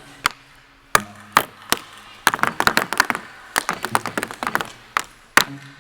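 Rhythmic percussive tapping, sharp wooden clicks in quick clusters with short pauses between them.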